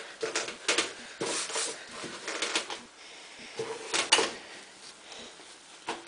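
A paper towel wiping and rubbing the door of a microwave oven, in irregular short swishing strokes of varying strength.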